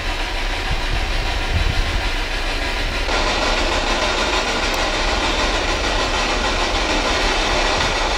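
Spirit box radio static: a steady hissing noise with a low hum underneath as the device scans for a response.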